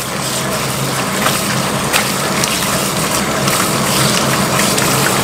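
Tap water pouring into a plastic basin and splashing as hands rub and rinse fish fillets in it: a steady rush of water, with a low steady hum underneath.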